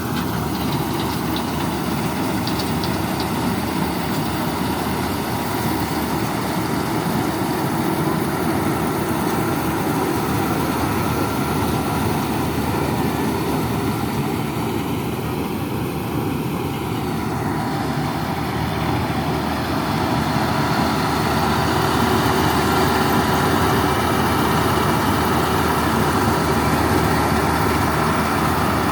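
Combine harvester running steadily while cutting rice: a continuous heavy diesel engine drone with the whir of its threshing machinery, growing a little louder in the last third.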